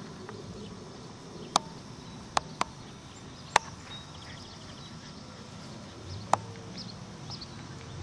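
Outdoor rural background with faint bird chirps, broken by five sharp clicks, two of them close together; the clicks are the loudest sounds.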